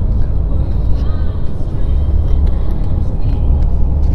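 Steady low rumble of road and engine noise inside a moving car's cabin, with a paper bag crinkling as it is unfolded by hand.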